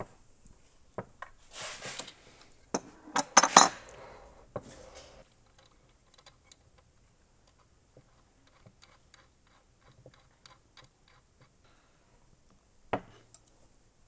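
Steel pipe fittings and hand tools clinking and scraping as fittings are tightened into a hydraulic pump. An adjustable wrench clanks and rasps against a fitting in the first few seconds, then come small light ticks while a fitting is turned by hand, and one sharp clink near the end.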